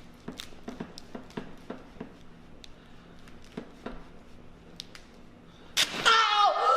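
Soft rustling and small clicks of handling, then a sharp click near the end followed at once by a woman's loud, drawn-out cry falling in pitch: her reaction to a spinal decompression pull.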